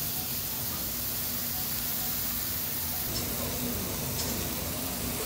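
Pork belly sizzling steadily on a hot tabletop grill plate, with a faint steady hum underneath.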